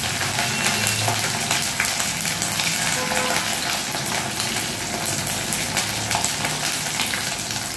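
Oil sizzling steadily in a kadai as ginger paste, cashew paste and whole spices fry in it, with a dense fine crackle.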